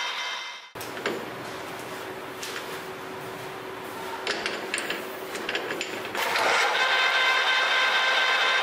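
Metal lathe running, cutting off sharply just under a second in. A few clicks and knocks follow while a brass workpiece is handled at the lathe chuck. About six seconds in the lathe runs again, louder and steady, with a drill bit in the tailstock boring into the spinning brass.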